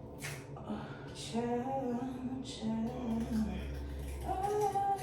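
A woman's voice singing a few drawn-out notes under her breath, with short hissing rustles between them.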